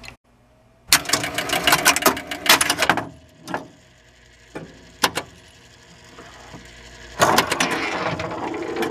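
1973 Williams Travel Time electromechanical pinball machine resetting for a game, its backbox relays and stepper units clacking. A dense run of rapid clacks lasts about two seconds, a few single clacks follow, and another run starts near the end.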